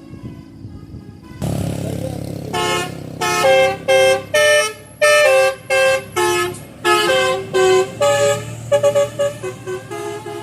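Bus telolet horn, a multi-tone musical air horn, playing a tune of loud toots at several pitches over the bus's engine running. The engine gets louder about a second and a half in, and the horn starts about a second later. The toots turn quicker and shorter near the end.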